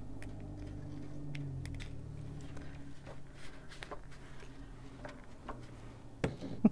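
Ranger Distress Sprayer, a small pump spray bottle, spritzing water onto a page of Distress ink, with scattered light clicks and taps from handling it, over a faint low hum.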